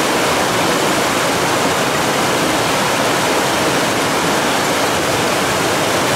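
A fast river rushing over rocky rapids: loud, steady white-water noise.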